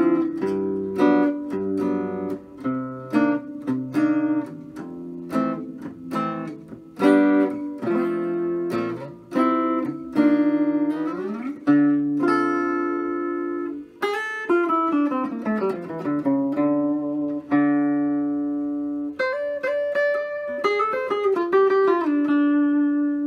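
Epiphone Zenith archtop guitar played through its DeArmond Rhythm Chief 1100 floating pickup, with the volume full up and the tone rolled back to about 2 o'clock. Quick picked single-note lines and chords with a few slides, settling on a held note near the end.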